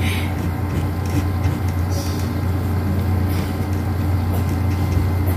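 A steady low hum runs throughout, with a few faint taps.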